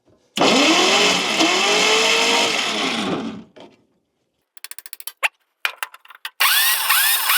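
Electric starter cranking a 1953 Kaiser's Continental 226 flathead six for about three seconds, its whine rising and falling with each compression stroke, during a compression check after stuck valves were tapped down. A quick run of ratchet-like clicks follows, then a second short burst of cranking near the end.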